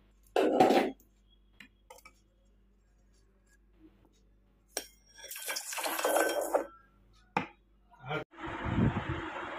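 Small metal tools and silver pieces clinking and being set down on a jeweller's bench, with scattered light ticks and a longer noisy handling stretch past the middle. A steady hiss starts near the end.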